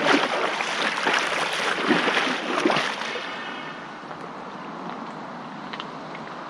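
Water splashing hard at the surface for about three seconds as a freediver kicks and dives, then settling to a softer steady lapping of water.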